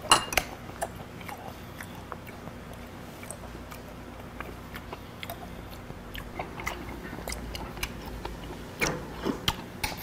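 Close-miked chewing and mouth sounds of a man eating meat, with scattered short clicks of chopsticks and tableware. There is a sharp click right at the start and a few louder clicks about nine seconds in.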